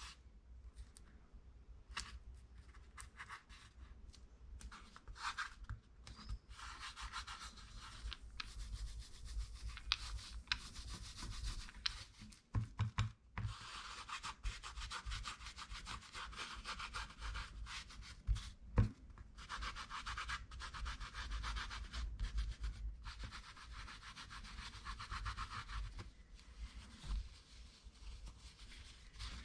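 A sponge dabbing and rubbing acrylic paint over torn masking tape on a wooden panel: a fast, scratchy scrubbing in stretches of a few seconds with short pauses, after a few seconds of scattered light taps. A couple of dull knocks come midway, the loudest a little before twenty seconds in.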